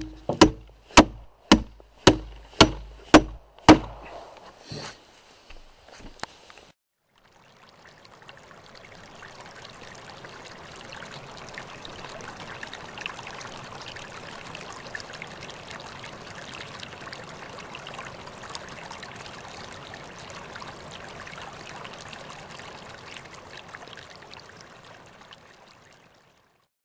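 A hammer driving a large nail into rough wooden planks: about eight sharp blows, two a second, then a few lighter taps ending about seven seconds in. After a short pause, a small stream running and trickling fades in, holds steady, and fades out near the end.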